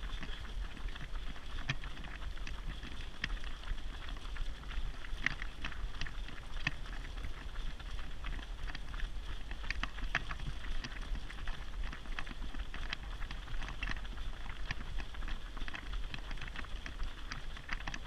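Many runners' footsteps on tarmac as short, irregular taps, over the low rumble of a running stroller's wheels rolling on the road and wind buffeting the microphone.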